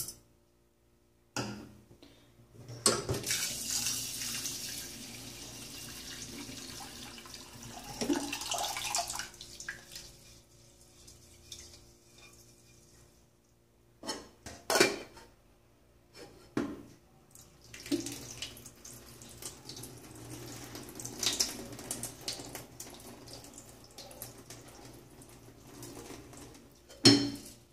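Rice being rinsed in a stainless steel saucepan at a kitchen sink: a few knocks of the pot, then a tap running into the pot for several seconds, followed by quieter water sounds with scattered knocks as the cloudy rinse water is poured off through a lid into the sink.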